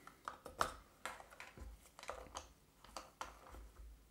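Light, scattered clicks and taps of small plastic items being handled on a work mat: a plastic syringe set down and a small bottle's cap being put back on.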